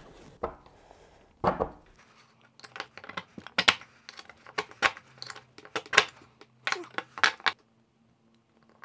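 Quick clusters of small sharp clicks and taps of plastic and metal parts being handled: polymer bearings seated into a 3D-printed part and a steel circlip gripped with circlip pliers. The clicking stops about a second before the end.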